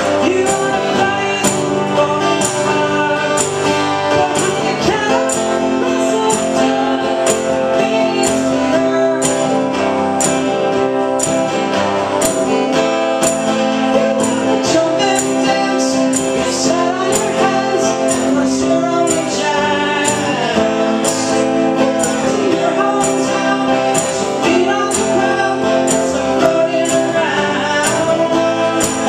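Acoustic guitars strummed in a steady rhythm with a man singing over them: a live acoustic duo.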